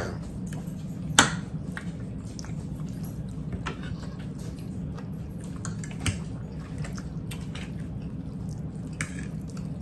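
Two people eating at a table: forks clicking and scraping on plates, with chewing of gravy-soaked fried chicken. A sharp click comes right at the start and another about a second in, with lighter clicks later, over a steady low hum.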